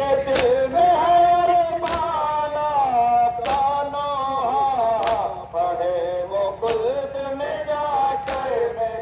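Male reciters chanting a Muharram nauha, a lament to Hussain, in a rising and falling melody. A sharp slap about every second and a half keeps time with the chant: the mourners' matam, hands striking the chest.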